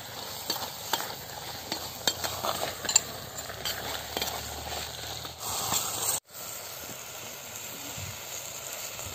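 Steel ladle stirring and scraping thick quail masala in a clay pot over a wood fire, with the food sizzling. Scrapes and clicks of the ladle against the pot come in a run for the first five seconds or so, then break off suddenly about six seconds in, leaving a steady hiss.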